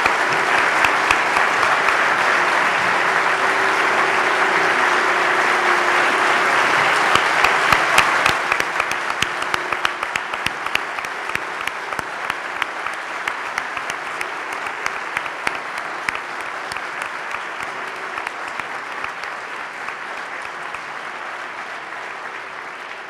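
Large audience applauding, at full strength for about the first eight seconds, then thinning into scattered separate claps that die away near the end.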